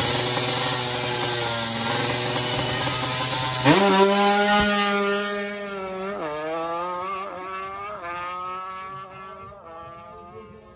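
Drag-racing motorcycle engine held at high revs on the start line, then launching about four seconds in. It runs up through several gears, each gear rising in pitch and dropping back at the shift, and fades as the bike pulls away down the strip.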